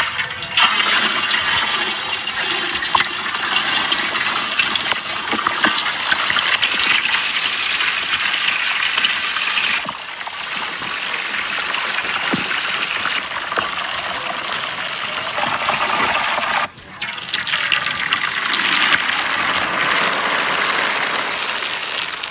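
Salmon deep-frying in hot oil: a loud, steady sizzle full of fine crackling, which dips briefly twice.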